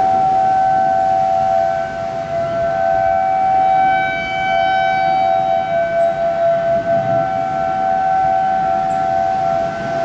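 Outdoor civil defense sirens sounding a steady tornado warning tone, two slightly different pitches heard together. The sound swells and grows fuller about four seconds in, then eases back.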